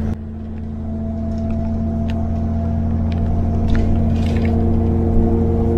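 Steady low drone of a bus running along a road, heard from inside the cabin, with a few steady tones above it, gradually growing louder, and occasional light rattles.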